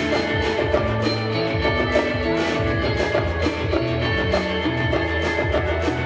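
A live rock band playing instrumental music: electric guitars over a low bass line, with congas and drum kit keeping a steady beat.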